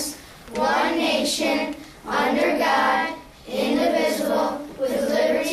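Children's voices reciting the end of the Pledge of Allegiance together, in short phrases with brief pauses between them.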